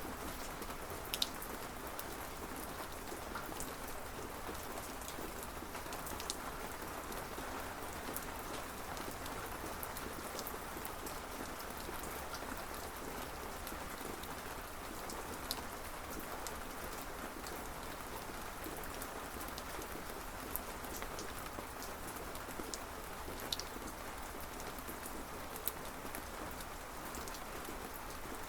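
Steady rain falling on a surface, an even hiss with scattered sharper drip ticks.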